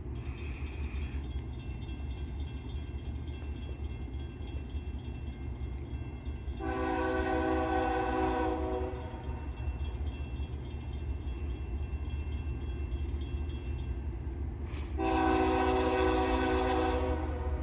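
Norfolk Southern intermodal freight's locomotive air horn sounding two long chord blasts, one about a third of the way in and one near the end, over the train's steady low rumble as it approaches.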